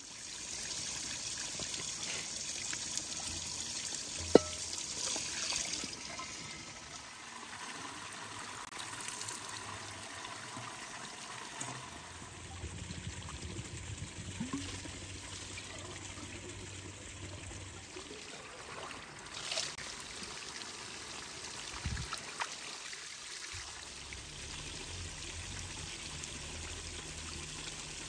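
Water running and trickling steadily, brighter and hissier for the first six seconds or so, with a single sharp click about four seconds in.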